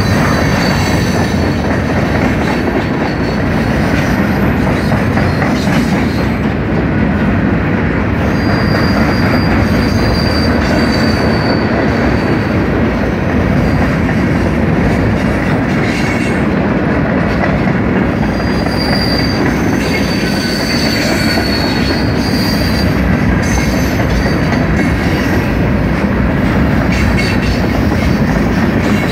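Freight train's covered hopper cars rolling past close by: a loud, steady rumble of steel wheels on rail. Thin, high wheel squeals rise over it about a third of the way in and again about two-thirds through.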